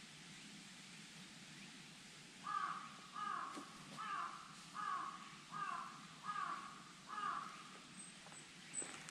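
A crow cawing seven times in a steady series, a little more than one caw a second, each caw short and dropping slightly in pitch.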